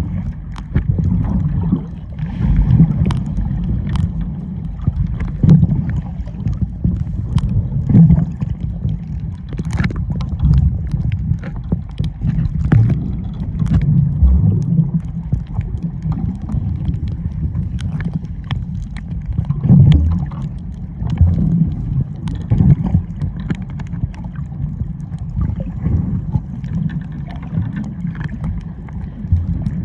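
Muffled sea-water noise with the microphone in or at the water: a low rumbling wash that swells and ebbs irregularly, with scattered small clicks and knocks.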